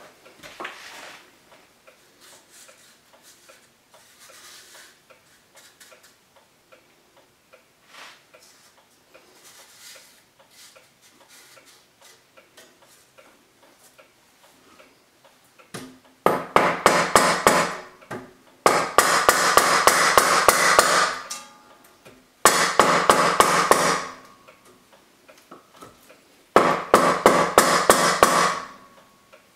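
Hammer rapidly tapping a wooden board held against a black stove pipe and its trim ring to drive the pipe into the wall. The tapping comes in four quick runs of about two seconds each, starting about halfway through, after a quiet stretch of light handling noises.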